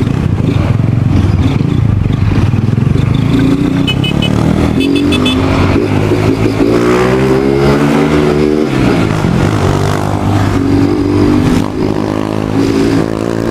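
Motorcycle engine running under way, its pitch rising and falling through the gears as the rider accelerates and eases off. A short series of faint high beeps sounds about four seconds in.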